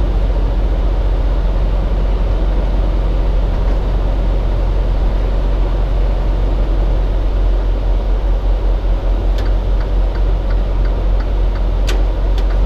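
Steady drone of a Freightliner Cascadia semi truck's diesel engine heard from inside the cab, with a couple of short clicks near the end.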